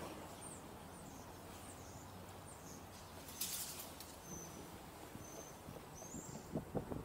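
Faint outdoor ambience with small birds chirping: short, high, thin calls scattered through, over a low steady background. A brief hiss comes about three and a half seconds in.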